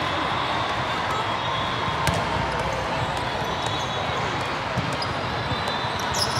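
Steady din of indoor volleyball play in a large hall: many balls thudding and bouncing off hands and courts, with a low murmur of voices and a sharp smack about two seconds in.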